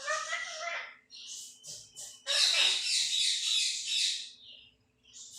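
Pet parrot squawking: a short pitched call at the start, a few brief high chirps, then a loud harsh screech lasting about two seconds.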